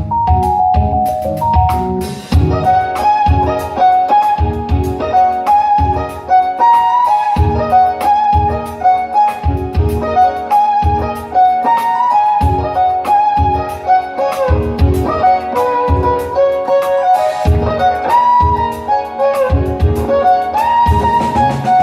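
Jazz-fusion band playing live: a violin melody with sliding notes over keyboards, bass and a steady drum beat.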